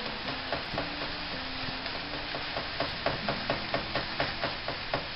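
Ground chorizo sizzling in a nonstick frying pan while a fork stirs it, tapping and scraping against the pan. The taps come in a quick run of several a second in the second half.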